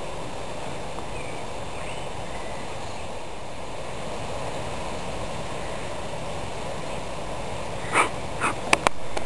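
Steady outdoor background noise with no distinct source, then near the end several short, sharp dog barks or yips.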